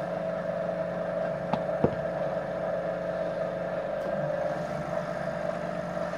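Electric potter's wheel motor running with a steady hum, with a couple of light clicks about a second and a half in.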